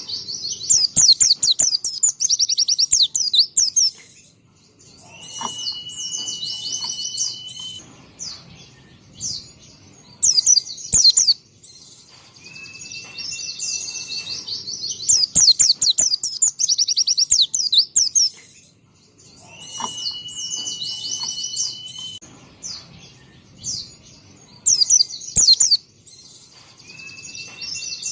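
White-eye (pleci) singing loudly: fast, high chirping trills broken by a long steady whistled note, the same song phrase repeating about every seven seconds.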